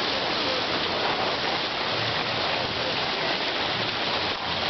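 Steady rushing hiss of skis gliding over packed snow as the skiers are towed behind a horse-drawn sleigh, with faint voices in the background.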